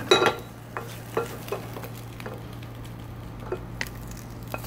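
Wooden spatula stirring diced celery, onion, bacon and potato sautéing in a small metal saucepan, with a light sizzle and scattered taps and scrapes of the spatula against the pan. A louder clatter comes just at the start, and a steady low hum runs underneath.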